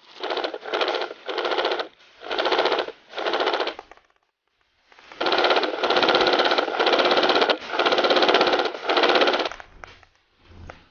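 Airsoft gun firing on full auto in short bursts of rapid clatter, about ten bursts with a longer pause about four seconds in.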